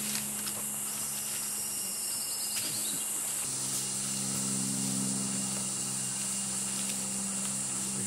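Rainforest ambience: a steady, high-pitched insect drone over a low steady hum that grows stronger about halfway through. A descending trilled call sounds from about one to three seconds in.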